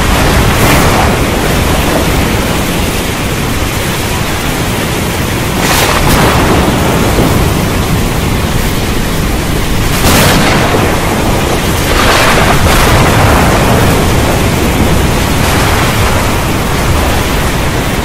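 Heavy, steady rain with thunder rumbling underneath. Louder thunder claps come about six, ten and thirteen seconds in.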